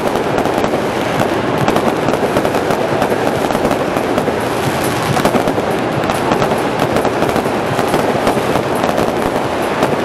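Fireworks display: a dense, unbroken volley of crackling and popping from many bursting shells.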